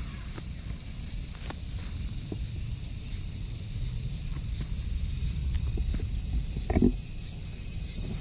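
Steady high-pitched insect chorus from the surrounding grass, pulsing about twice a second, over a low wind rumble. One brief, louder sound comes about seven seconds in.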